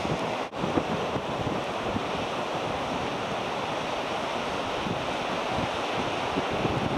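Sea surf washing steadily, with wind buffeting the microphone in low, uneven rumbles. The sound dips out for a moment about half a second in.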